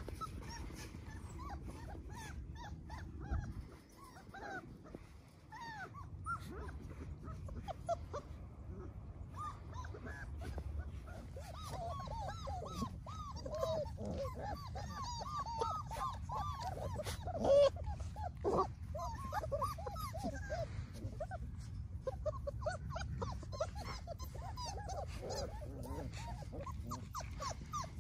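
A litter of Labrador retriever puppies whimpering and squeaking: many short, high, overlapping cries, sparse at first and busiest through the middle, with one louder cry partway through. A steady low rumble runs underneath.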